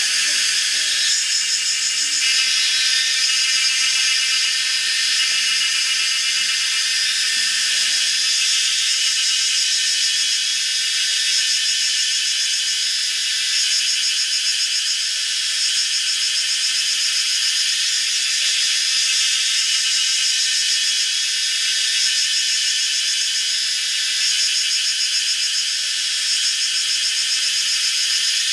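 Steady, shrill outdoor insect chorus, a dense high-pitched drone that holds the same level throughout without a break.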